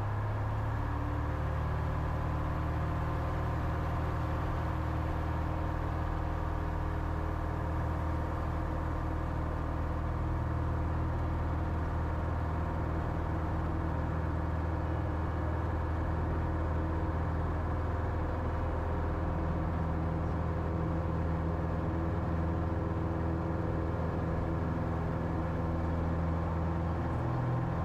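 Single-engine Cessna 172H's six-cylinder Continental engine and propeller running steadily at full takeoff power, heard from inside the cockpit as a constant drone.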